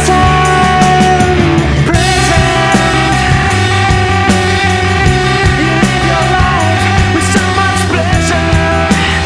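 Rock song with a full band of electric guitars, bass and drums, and a held melody line that bends in pitch over it.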